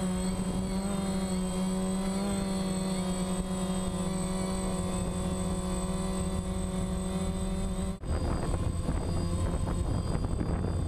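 A DJI drone's electric motors and propellers running in flight, picked up by the GoPro camera mounted on the craft: a steady buzzing hum made of several held tones that waver slightly. About eight seconds in, the sound cuts suddenly and comes back rougher and noisier, with a deeper hum.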